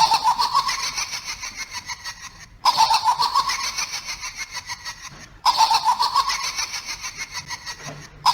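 A recorded laugh played three times in a row, each take about three seconds long and cutting in abruptly, a rhythmic ha-ha pulse at a steady pitch.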